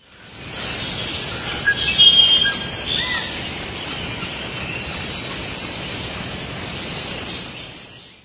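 Nature ambience of birds chirping over a steady hiss, fading in at the start and out near the end.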